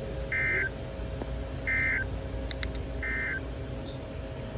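Three short, identical electronic data bursts about a second apart, the EAS/SAME end-of-message tones that close a weather radio alert. They play over a steady radio hum.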